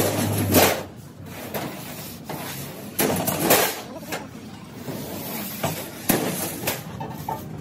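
Irregular metal clanks and knocks of factory work, about seven sharp strikes a second or so apart. A steady low machine hum cuts off near the start.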